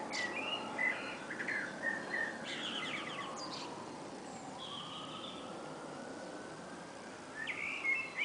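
Small birds chirping in short bursts, busiest in the first three seconds and again near the end, over a steady background hum.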